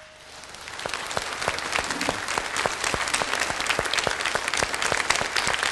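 Studio audience applauding, building up over the first second and then holding steady.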